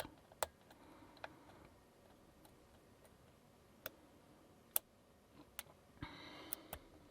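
Faint, irregular clicks of a lock pick working the wafers of a Lockwood wafer lock under tension, with a brief faint rasp about six seconds in.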